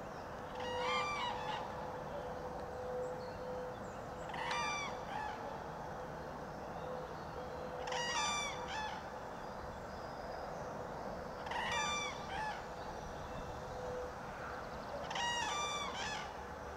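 Common cranes calling: five loud calls about three and a half seconds apart, each a short run of rolling, trumpet-like notes.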